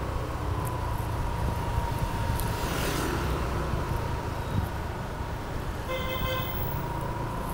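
Road traffic on a town street with a steady low rumble of vehicles. A vehicle horn toots briefly about six seconds in.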